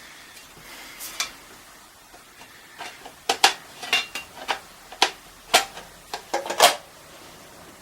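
Sharp metallic clicks and clinks of small screws and a screwdriver against the car radio's thin metal case as it is screwed back together, about a dozen in an uneven run in the second half.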